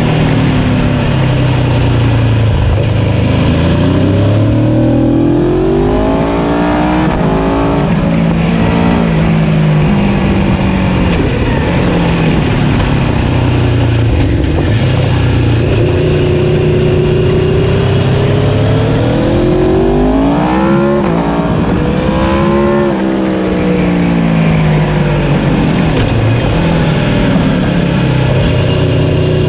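Aprilia Tuono motorcycle engine accelerating and easing off through a run of curves, its pitch climbing and dropping again and again as it revs and shifts gear, over steady wind and tyre rush.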